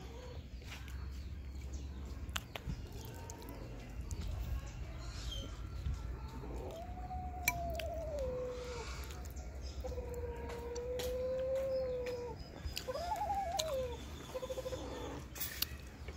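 A rooster crowing from about six seconds in: a long drawn-out call in several parts, rising and falling, then held, then wavering. There are a few light clinks of a metal spoon against a ceramic soup bowl.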